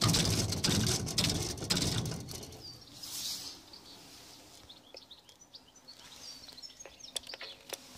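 Static hissing from the outdoor unit of a Synertech video door phone for about two seconds after its call button is pressed, showing that the call is going through. Then birds chirp faintly, with a few light clicks near the end.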